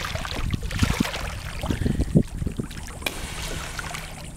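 Irregular dull bumps and rubbing against a kayak hull as a manatee mouths it, with water lapping and wind on the microphone. A sharp click about three seconds in.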